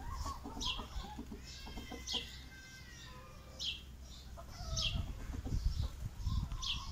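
Desi chickens clucking and calling from a backyard cage, with short high chirps recurring about every second and a drawn-out call about one and a half seconds in. A low rumbling noise rises in the second half.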